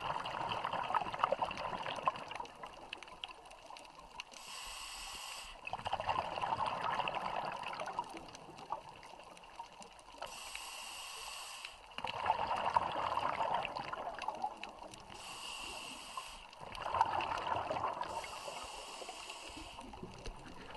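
Scuba diver's breathing through a regulator underwater: a short hiss on each inhale, then a longer burst of bubbling on each exhale, about four breaths, one every five seconds or so.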